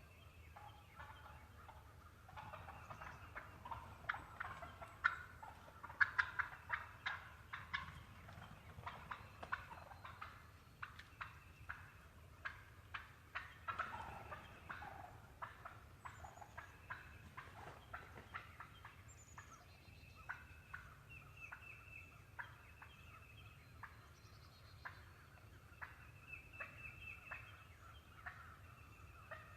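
Wild turkeys calling: quick runs of short, sharp notes that come in clusters, loudest in the first half, with small birds chirping faintly now and then.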